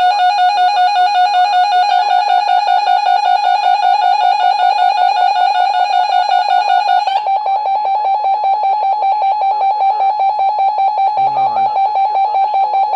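Weather radio receiver's electronic alert alarm: a loud, buzzy beeping tone pulsing steadily, which shifts to a slightly higher, thinner tone about seven seconds in.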